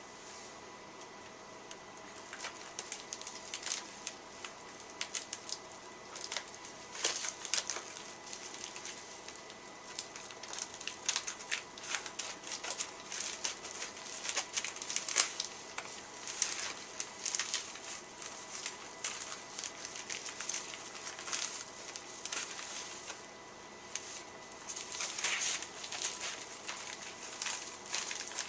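A shipping package being opened by hand: irregular crackling, rustling and small clicks of packing material being pulled and torn.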